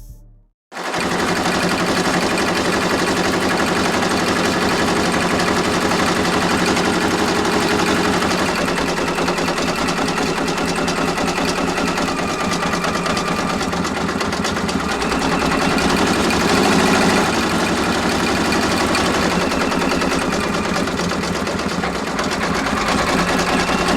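Baby Lock Alliance embroidery machine stitching at speed, a steady rapid clatter of needle strikes, starting abruptly about a second in. It is sewing the border outline of a patch.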